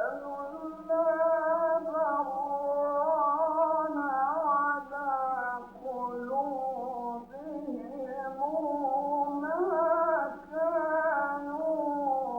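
A man's voice in melodic Quran recitation, holding long, ornamented notes that slide and waver in pitch, with short breaks between phrases. It comes from an old recording with little treble and a faint steady low hum.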